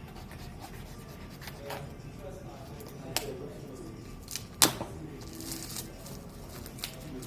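A smartphone's retail box being opened by hand: scattered clicks and rustles of cardboard and packaging. The loudest is a sharp snap about four and a half seconds in.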